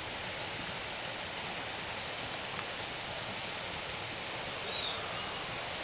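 Steady, even outdoor hiss with no single event standing out, and two or three faint, short, high chirps near the end.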